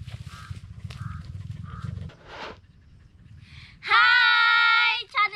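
A rhythmic scraping, about three strokes every two seconds, over a low steady rumble, which stops about two seconds in. About four seconds in, a high voice holds one loud steady sung note for about a second, then sings on.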